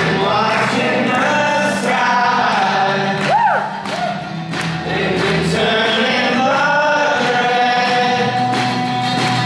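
A band playing live: several voices singing together in harmony over acoustic guitar, accordion and a snare drum keeping a beat.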